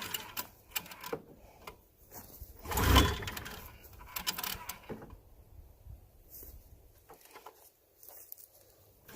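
Snowmobile engine being pull-started by its recoil rope: one hard pull about three seconds in turns the engine over without it firing, with smaller clicks and rattles around it. The rope is short-pulling, which the owner thinks means it needs a new rope, and the engine is not catching, likely because the fuel has leaked out.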